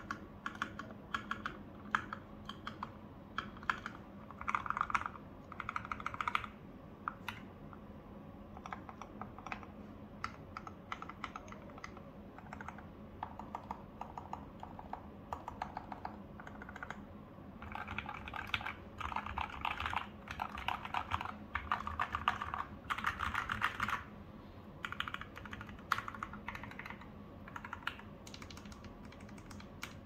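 Typing on an FL MK870 keyboard with lubed Durock Lavender switches, PBT keycaps and a stainless steel plate, recorded through a phone's microphone: a stream of keystroke clacks in bursts with short pauses, busiest in the second half.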